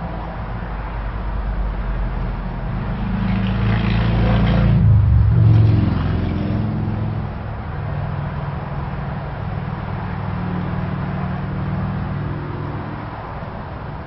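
Hunter Passport II ceiling fan running, a steady low motor hum under the rush of air from its blades. A louder rushing sound swells up and fades away, peaking about five seconds in.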